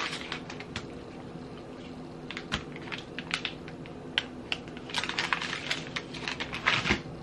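Plastic package of egg roll wrappers crinkling in irregular light ticks and rustles as a wrapper sheet is pulled out and peeled apart, busiest about halfway through and again near the end.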